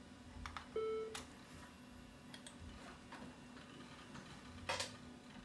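A few faint, scattered clicks and ticks over a low steady hum, with a brief short tone about a second in.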